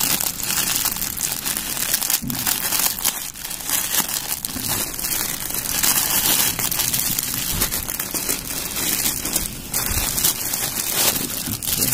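Plastic packaging crinkling and crackling as a courier mailer bag is torn open by hand and the plastic-wrapped bedsheet inside is pulled at: a continuous crinkle with many sharp crackles.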